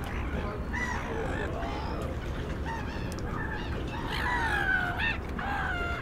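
Several gulls calling over one another, short arched cries and longer falling calls, the loudest a long downward-sliding call about four seconds in.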